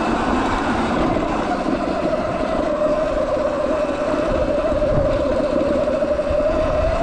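Sur Ron Light Bee X electric dirt bike under throttle on a climb: a steady electric-drive whine over the rumble of knobby tyres on dirt and wind. The whine sags a little in pitch as the bike slows, then rises again near the end as it picks up speed.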